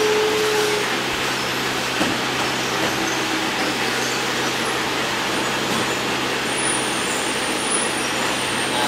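Model trains rolling along the layout's track with a steady rolling noise and a constant low hum.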